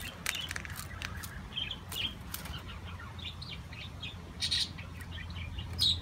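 Zebra dove pecking seed from a plastic feeder: irregular sharp clicks and brief seed rattles, the loudest about four and a half seconds in and near the end, over a steady low hum.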